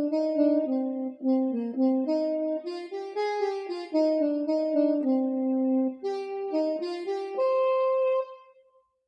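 Yamaha PSR-I455 portable keyboard playing a slow melody of held single notes on a sustained voice, with no rhythm backing, ending on a long note that fades out near the end.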